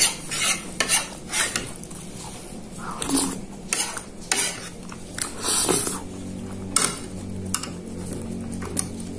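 Metal spoon scraping and clinking against a plate as peanut sauce is spooned over chicken satay skewers: a dozen or so short scrapes and clicks at irregular intervals.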